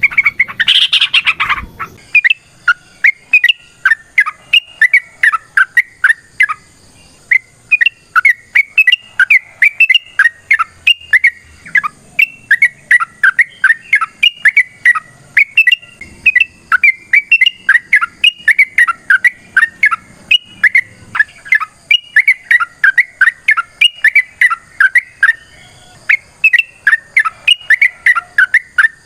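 Yellow-vented bulbul (trucukan) singing a long, fast chattering song of loud repeated notes, about three to four a second, with two brief breaks. A short, different noisy burst comes just before the song starts.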